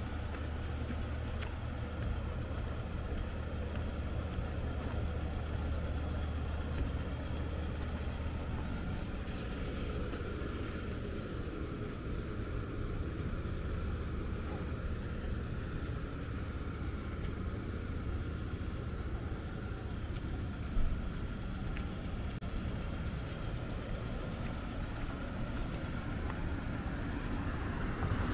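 Road vehicle noise: a steady low engine hum with traffic, and one short knock about three-quarters of the way through.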